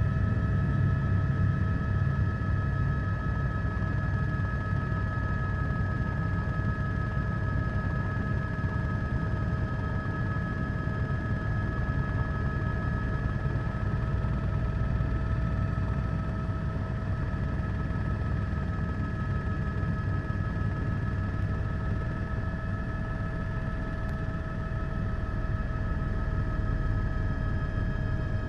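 Helicopter running overhead: a steady low rotor and engine rumble with a constant high turbine whine over it.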